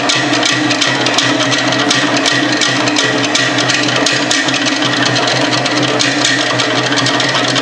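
Fast, driving percussion music for a Polynesian dance: rapid, dense drum strikes over a steady low tone.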